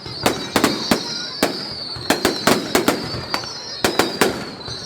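Fireworks bursting in quick, irregular succession, several sharp bangs a second over a steady high hiss.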